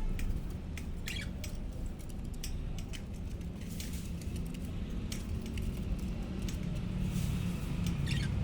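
Budgerigars scratching, pecking and clicking with beaks and feet, with two short falling chirps, over a steady low rumble.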